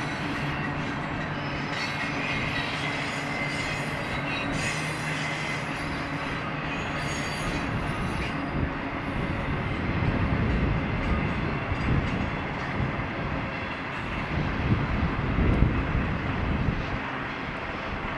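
Double-stack intermodal freight cars rolling past, steel wheels rumbling steadily on the rails, with a thin steady wheel squeal over the first half. Heavier low rumbling comes in from about halfway.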